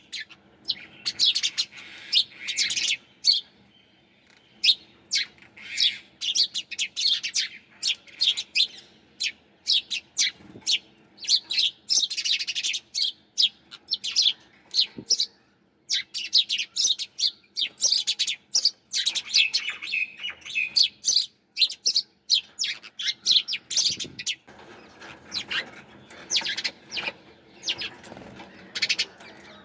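Sparrows chirping: a dense run of short, quick, high chirps from several birds overlapping, easing off briefly near the end before picking up again.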